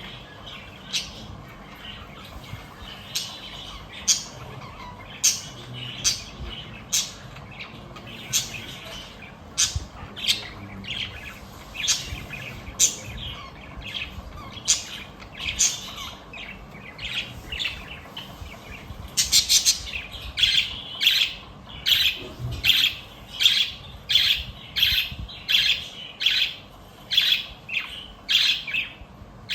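Pet budgies (budgerigars) chirping, a run of short sharp chirps and squawks that come faster and closer together in the second half.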